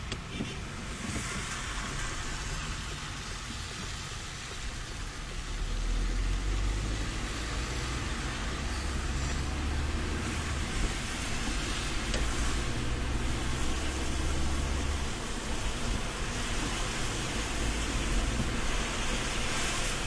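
Inside a moving car on a wet road: a steady hiss of tyres on the wet surface over a low road and engine rumble. The rumble grows louder about six seconds in.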